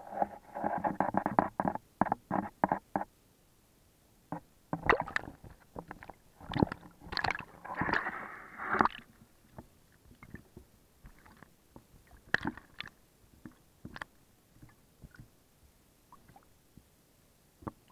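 Muffled knocks and scrapes from catfish nudging and bumping an underwater camera housing: a rapid run of knocks over the first three seconds, a busier, louder stretch in the middle, then scattered single taps.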